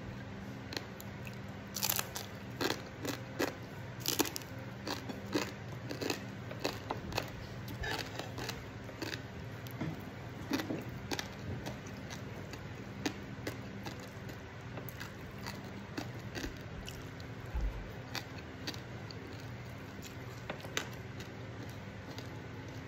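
A person chewing and crunching crisp fried jelawat fish, close to the microphone. The sharp crunches come thick and fast in the first half and thin out later, over a steady low hum.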